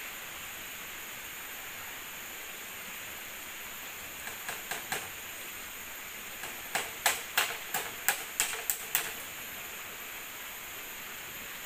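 A hammer driving nails into bamboo roof framing: a few light taps about four seconds in, then a run of about nine sharp strikes at three or four a second. A steady high drone of forest insects runs underneath.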